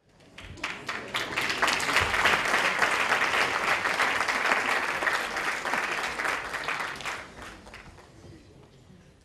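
Audience applauding: a dense patter of many hands clapping that swells within the first couple of seconds, holds, then dies away over the last two seconds.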